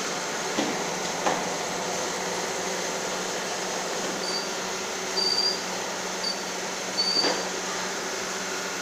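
Chin chin snack machine running: a steady mechanical hum with a few soft knocks, and four short high squeaks from about four seconds in.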